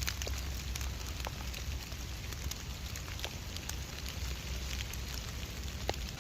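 Steady rain falling, with many scattered drops hitting close by as sharp little ticks.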